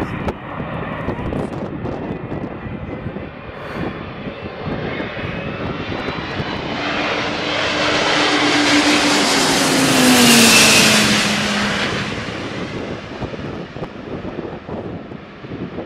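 Antonov An-225 Mriya's six turbofan engines passing low overhead on landing approach. The jet noise swells to a peak about ten seconds in, with a whining tone that drops in pitch as the aircraft goes over, then fades as it flies away toward the runway.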